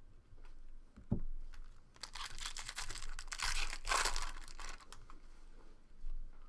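Foil trading-card pack wrapper crinkling and tearing as it is opened, after a dull knock about a second in.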